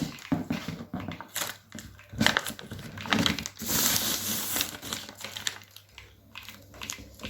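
Paper crinkling and rustling in irregular bursts as it is handled and pressed onto a cardboard box, with the longest, loudest rustle about four seconds in.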